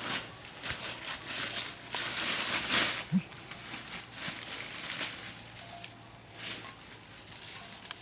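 Leaves and brush rustling and crackling as a person pushes through dense forest undergrowth on foot, loudest in the first three seconds, then lighter footsteps and rustles.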